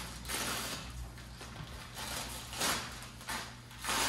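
Paper and cloth wrapping rustling and crinkling in several swells as a bundle of piano strings is unwrapped by hand.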